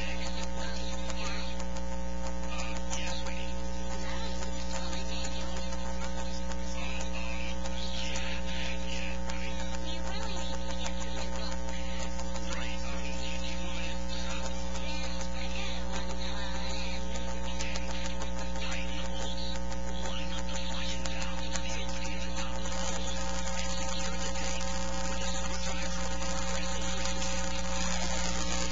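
Steady electrical mains hum with a stack of buzzing overtones, unchanging throughout, with faint irregular sounds above it.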